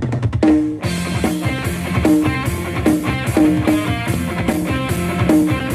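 A song with electric guitar over a steady beat, played through a Harman Kardon Luna portable Bluetooth speaker; a fuller band arrangement comes in about a second in.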